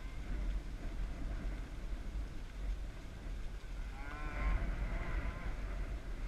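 A cow mooing once, about four seconds in, for a second or so, over a steady low rumble.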